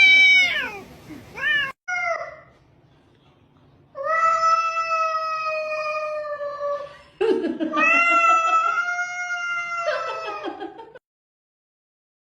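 A cat meowing: a few short arched meows, then two long drawn-out yowls of about three seconds each. The sound cuts off abruptly near the end.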